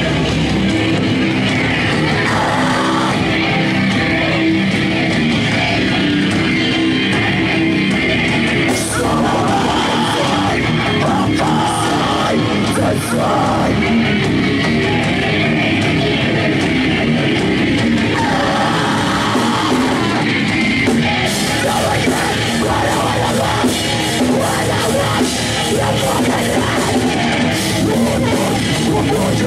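Heavy hardcore band playing live and loud without a break: distorted electric guitars, bass and drum kit.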